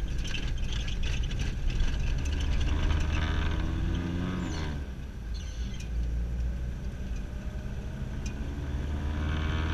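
Car engine and tyre noise heard from inside the cabin while driving on a paved road: a steady low hum, with the engine's pitch climbing for a couple of seconds and dropping off sharply about four and a half seconds in.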